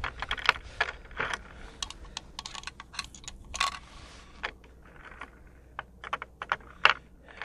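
Irregular light clicks and taps of handling at a wooden shooting bench: gloved hands on a bolt-action rifle and its cartridges, with a few sharper clicks near the end.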